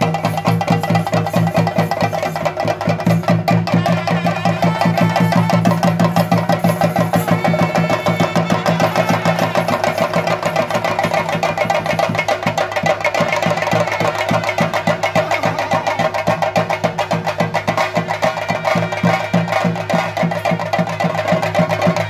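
Fast, continuous chenda drumming with clashing brass hand cymbals (elathalam), the accompaniment to a Theyyam dance. A steady low drone runs under the drumming and stops about ten seconds in.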